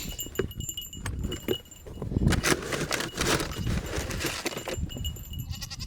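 Metal jangling and clinking among rustling and scuffing handling noises, with goats close by.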